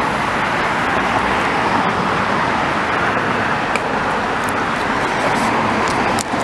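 Steady road traffic noise: cars driving past on a city street, an even rush of tyres and engines.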